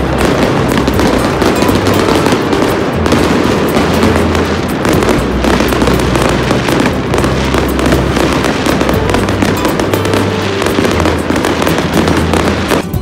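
Many fireworks going off at once: a dense, continuous crackling and popping of rapid bangs.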